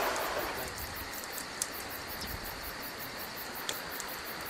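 Insects chirping in an even rhythm of about four pulses a second over a steady background hiss, with a couple of faint clicks.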